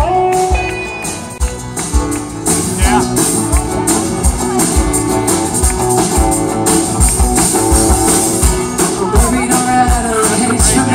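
Live rock band playing through a PA: electric and acoustic guitars, bass, and a drum kit keeping a steady beat, with a woman singing.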